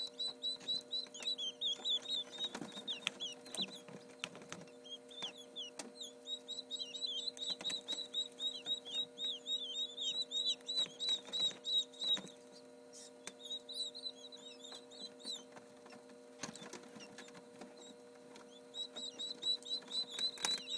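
Quail chicks peeping: quick, high-pitched peeps, several a second, in bouts with short pauses, over a steady low hum.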